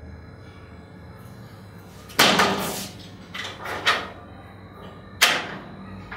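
Metal-framed glass window panes being pushed open: a sudden loud clatter of the frame about two seconds in, a smaller double knock a second or so later, and another sharp bang about five seconds in.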